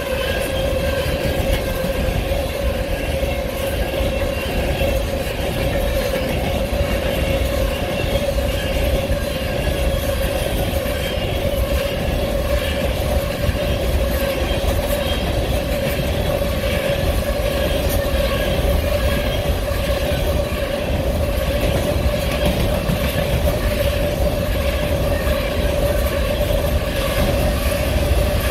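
Union Pacific freight train of empty cars rolling past, a steady ringing tone held over the continuous rumble of the wheels, with wind buffeting the microphone.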